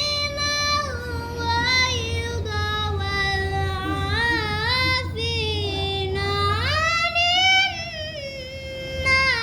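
A young girl's voice reciting the Qur'an in melodic qiro'ah (tilawah) style, holding long, ornamented notes with short pauses for breath. The melody climbs to a higher, louder phrase about seven seconds in.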